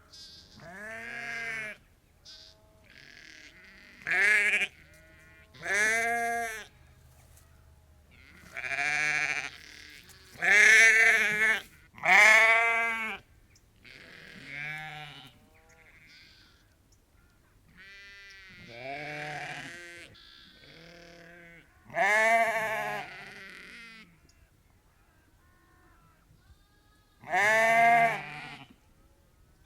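Flock of ewes and lambs bleating: separate wavering calls follow one another every second or two, some loud and some faint.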